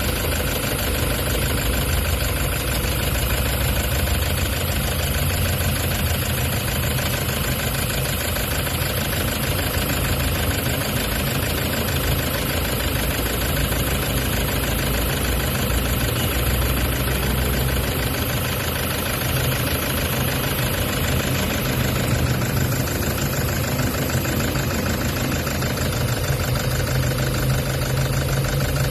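Toyota Hiace common-rail diesel engine idling steadily with a fast, even clatter. The mechanic traces a fault in it to the connecting rod and main bearings, while finding the injector firing okay.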